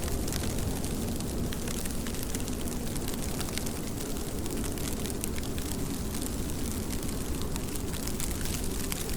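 Steady rain: a dense, low wash of noise dotted throughout with many sharp ticks of drops hitting.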